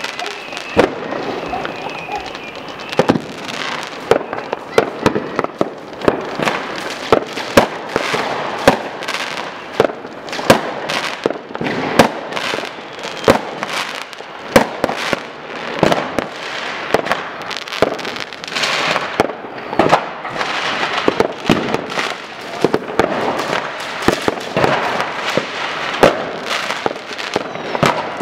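Fireworks and firecrackers going off non-stop: frequent sharp bangs, the loudest about every second or two, over a constant crackle of smaller pops.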